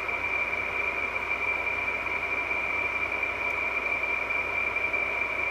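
2003 Frigidaire (Electrolux-built) window air conditioner running: a steady rush of air with a constant high whine. The owner puts the noise down to the fan motor's bearings being shot.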